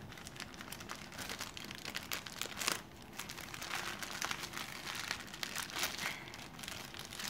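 Crinkly packaging wrap being pulled open and handled, a continuous irregular crackling and rustling with one sharper crackle a little under three seconds in.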